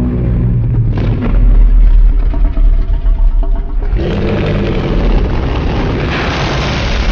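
Loud monster sound effect: a deep rumble with a sharp hit about a second in, then a hissing roar from about four seconds in that grows louder.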